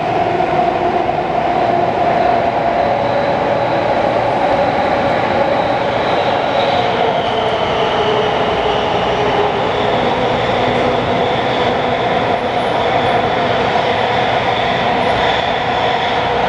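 Taipei Metro C341 subway car interior: a steady whine of several held tones over a rumbling background, from the car's onboard electrical equipment. The rider says the car's inverter seems to be making an abnormal noise.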